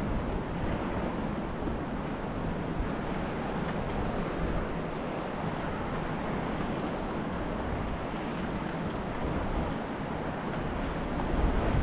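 Wind buffeting the microphone over the steady wash of choppy sea water around a kayak, with a stronger gust of rumble near the end.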